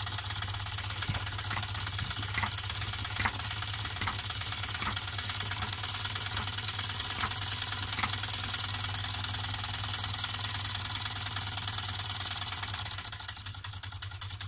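LEGO Technic pneumatic engine running at speed: a steady hiss of compressed air exhausting from its cylinders and valves, over a fast plastic rattle with scattered clicks. Near the end it drops and stops as the air is shut off.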